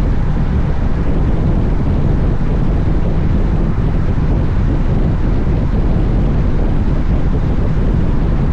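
Wind rumbling steadily on the microphone of a camera on a moving motorcycle, a deep, constant buffeting that covers the bike's engine and road noise.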